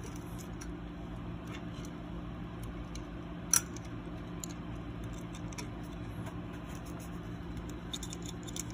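A sharp click of a steel wire fan clip about three and a half seconds in, with a few small ticks near the end, as the clip is hooked onto the fan frame and the tower CPU cooler's heatsink. A steady low hum runs underneath.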